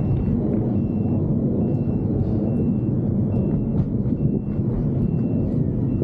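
Steady low rumble of wind buffeting the microphone and tyres rolling while riding a bicycle, with a faint high tone pulsing about once a second.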